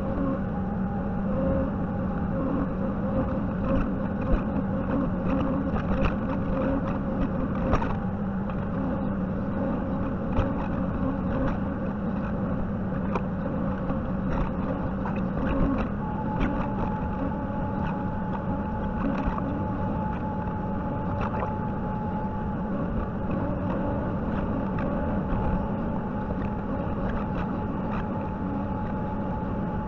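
JCB 55Z mini excavator's diesel engine running steadily, with scattered sharp cracks and knocks. A steady higher whine joins about halfway through.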